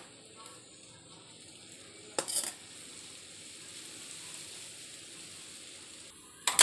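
Rice flour pouring from a steel tumbler into a steel mixing bowl, a soft steady hiss. A clink of metal on metal comes about two seconds in, just before the pour, and a louder knock near the end.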